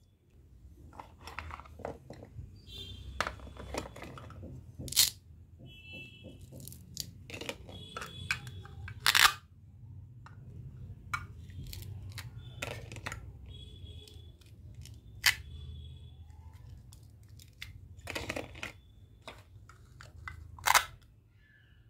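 Plastic toy cutting-fruit pieces handled by hand: fruit halves pulled apart at their velcro pads with short ripping sounds, and hard plastic pieces clicking and knocking together.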